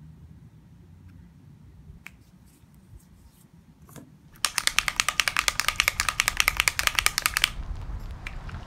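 Rapid run of iPhone camera shutter clicks in burst mode, about ten a second for some three seconds, then stopping abruptly. A few soft taps come before it.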